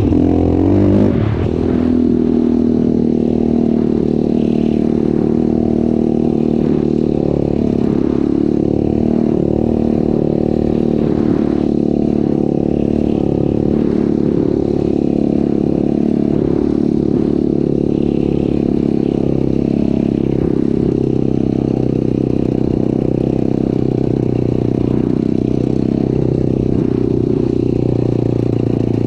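Off-road vehicle engine running steadily under way, heard from on board; the revs shift briefly in the first second or two, then hold an even drone.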